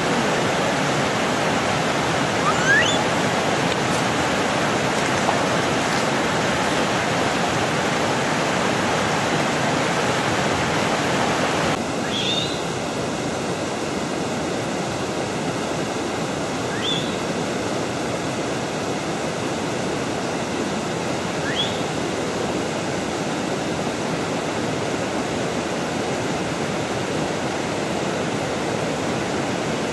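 Steady rush of flowing water, a little quieter after about twelve seconds in, with a few short, high rising chirps at intervals.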